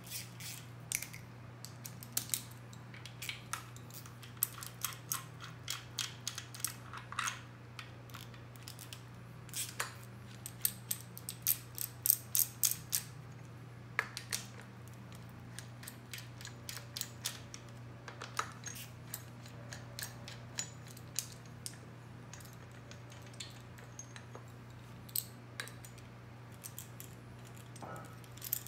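Hex key turning and loosening the bolts of a billet thrust-setting tool on a Duramax engine block: irregular sharp metal clicks and ticks, with quick runs of clicks about halfway through, over a steady low hum.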